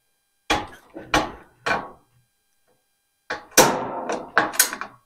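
Gas grill control knobs being pushed onto their valve stems on the sheet-metal control panel: sharp knocks and clicks, three in the first two seconds, then a quicker run of four or five about a second later.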